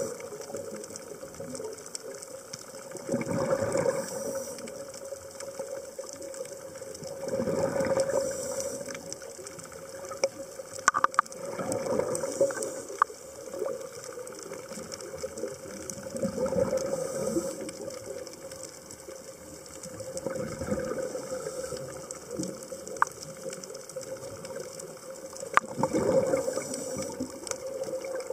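Scuba diver breathing through a regulator underwater: each exhalation is a burst of bubbling that swells and fades, repeating roughly every four seconds, with a few sharp clicks in between.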